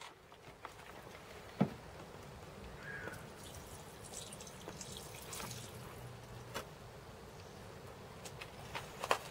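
Carpet detergent poured from a plastic measuring jug into a Rug Doctor carpet cleaner's solution tank, trickling and dripping through the filter screen. A few light plastic clicks, the loudest a sharp knock about a second and a half in.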